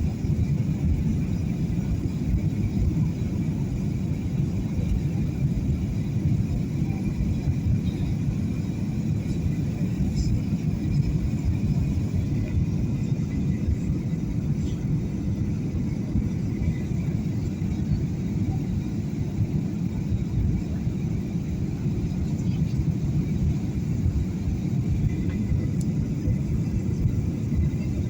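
Airliner cabin noise: a steady low rumble of engines and rushing air heard from inside the passenger cabin during the approach to landing.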